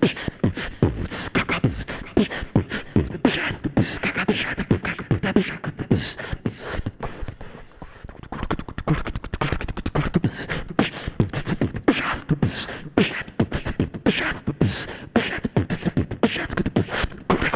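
Live jazz/hip-hop band playing a busy, steady drum-kit groove with keyboard and bass underneath.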